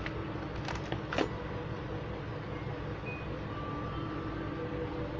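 Kit parts being handled in a cardboard box: a few short clicks and knocks about a second in, over a steady low background rumble.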